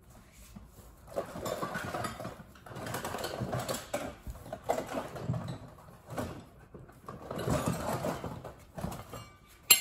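Hand tools and packaging rustling, scraping and knocking together as someone rummages through a box of loose tools. Near the end, one sharp metallic clang with a short ring as something drops.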